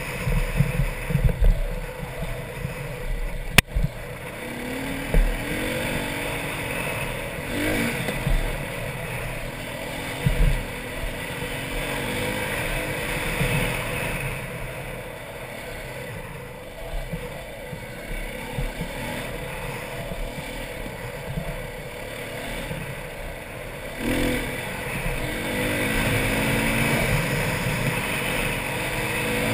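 Dirt bike engine running on a trail ride, its revs rising and falling with the throttle, over a low rumble of wind on the helmet-mounted microphone. A single sharp knock about three and a half seconds in.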